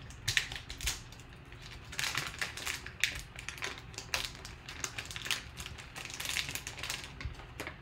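Foil trading-card pack crinkling and tearing as it is ripped open by hand: a quick crackle about a third of a second in, then almost continuous crinkling from about two seconds in until near the end.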